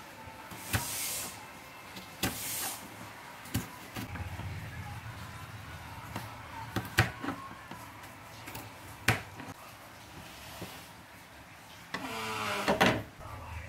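Kitchen knife cutting a green tomato on a plastic cutting board: sharp, separate knocks of the blade on the board, scattered irregularly, with a louder rasping burst near the end.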